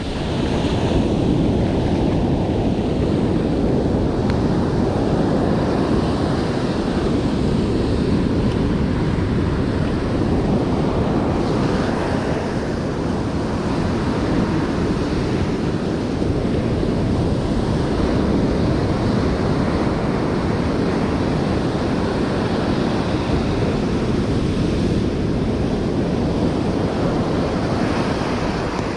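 Ocean surf breaking and washing up a sandy beach in a steady rush that swells and eases, with wind buffeting the microphone.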